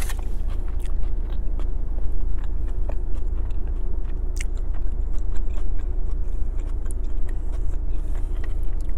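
Close-up chewing of a mouthful of flour-tortilla burrito, with scattered small mouth clicks, over a steady low rumble inside the car.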